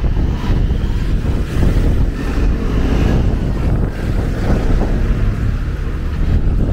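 City minibus driving past close by at a street corner, its engine running, over the noise of street traffic. Wind buffets the microphone throughout.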